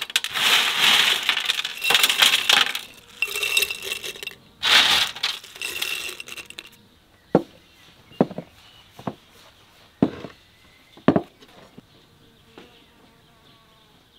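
Dried strawberry slices rustling and clinking against glass as handfuls are dropped into a glass jar. After about seven seconds this gives way to six or so separate knocks, about a second apart, as glass jars are set down on a wooden table.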